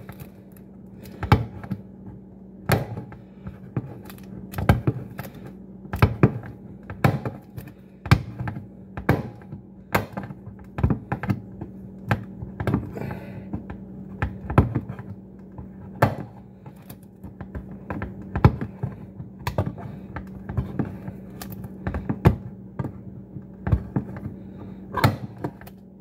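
Can-opener blade of a cheap multi-tool punching small bites one after another around the lid of a food can: a run of sharp clicks, roughly one a second and unevenly spaced.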